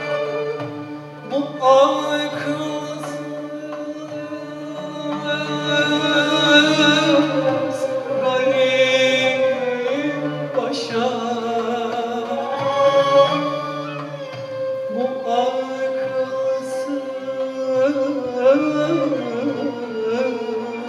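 Male solo voice singing a Turkish classical song, with a traditional instrumental ensemble accompanying.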